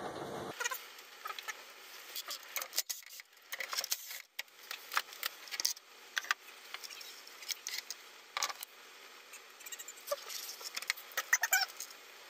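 Light, irregular clicks, taps and rustles of hands handling wires and pushing connectors onto a treadmill motor control circuit board.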